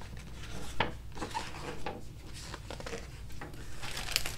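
Pages of a hardcover picture book being opened and turned: soft paper rustles with a few light taps, the clearest about a second in and near the end.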